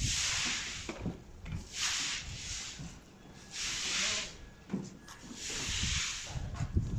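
Four bursts of hissing, each about a second long and roughly two seconds apart, over scattered low knocks and thuds.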